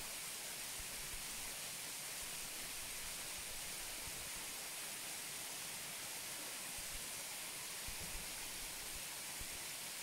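Waterfall: a steady, unbroken rush of falling water, heavy in the high hiss, with a few faint low bumps.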